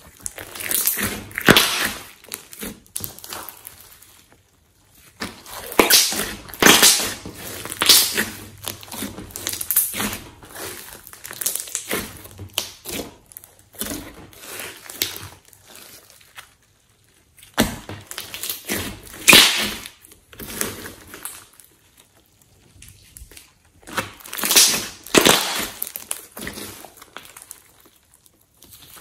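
Hands squeezing, stretching and poking a thick slime mixed with small foam beads, making wet clicking and crackling. The sound comes in bursts of a few seconds with short pauses between.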